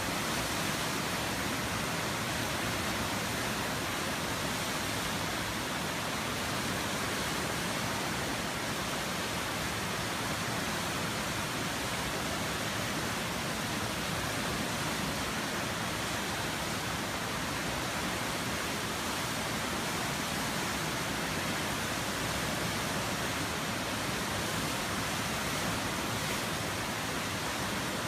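River water rushing, a steady, even noise with no breaks or changes.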